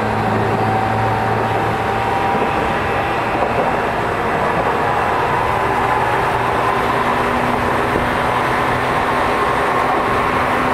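Tokyu 5050 series electric train running: steady rail and running noise with the traction motors' whine climbing slowly in pitch.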